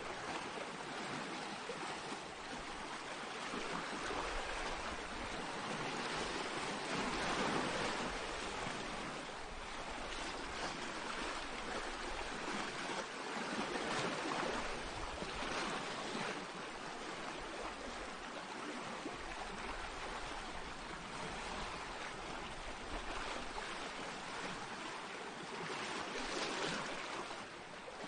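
Small sea waves washing in on a pebble beach, a steady rush that swells and eases every few seconds.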